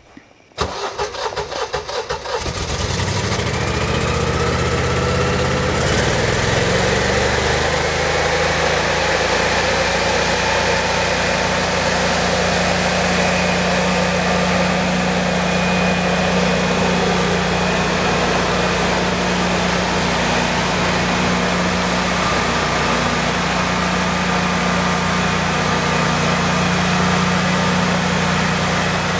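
Honeywell 17 kW standby generator's 992 cc V-twin cranking for about two seconds, then catching and running, its pitch rising for several seconds before settling into a steady run. It is a cold start at −24 °C without a cold weather kit, and the engine only starts after repeated starting attempts.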